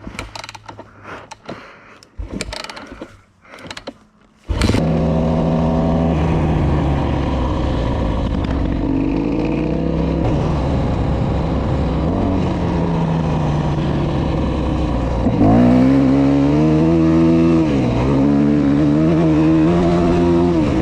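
Yamaha YZ250F motocross bike's single-cylinder four-stroke engine: after a few seconds of scattered knocks and clatter, the engine cuts in loud and runs with revs rising and falling, revving harder about two-thirds of the way through.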